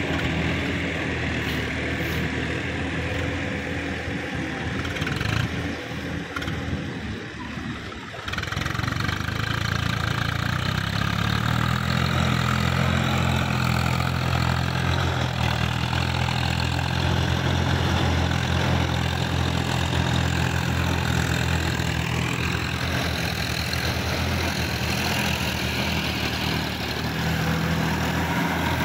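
Diesel tractor engine running steadily under load while it drags a rotary tiller through a flooded paddy field. The engine note becomes louder and steadier about eight seconds in.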